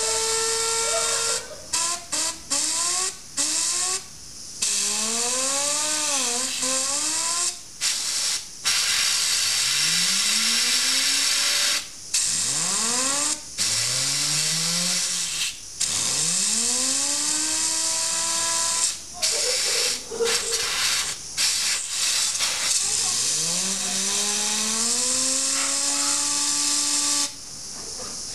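Compressed-air duster blowing into a PC case fan in repeated bursts: a loud hiss that stops and restarts many times. Each burst spins the fan up in a rising whine that slides back down when the air stops.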